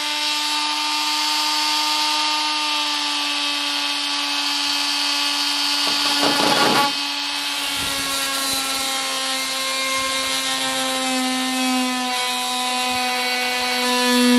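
A corded reciprocating cutting tool runs with a steady whine as it cuts through a fiberglass hood. The pitch slowly sags as the blade bites. There is a harsh gritty burst about two-thirds of the way through.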